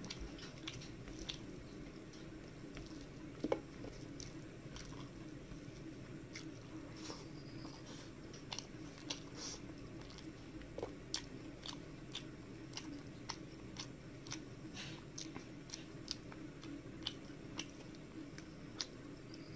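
Close-up sounds of eating rice and curry by hand: wet chewing with frequent short mouth clicks and smacks, and the squish of rice and gravy being mixed by fingers on a steel plate. One sharper click stands out about three and a half seconds in.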